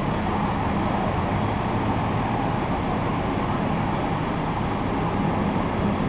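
Steady engine running, a low hum under a constant hiss.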